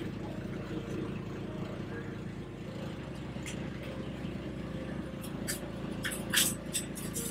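Steady low machine hum of food-trailer kitchen equipment, holding a stack of low tones, with a few light clinks and taps of kitchen work near the end.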